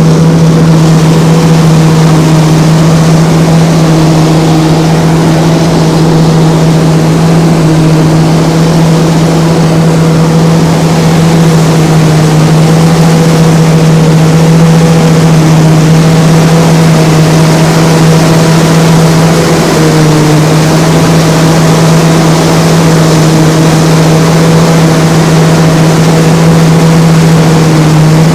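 Engine of corn harvesting machinery running loud and steady at constant speed, with a strong, unchanging low hum.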